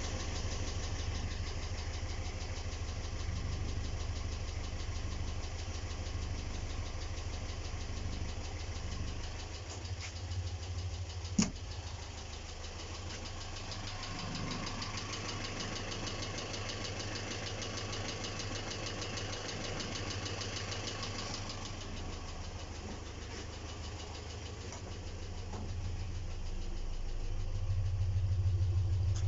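ZMZ-402 inline-four petrol engine running steadily with a distinct metallic ticking clatter. The valves are adjusted, it does not misfire and compression holds, so the source of the knock is unknown to the owner. A single sharp click about eleven seconds in, and the engine gets louder near the end.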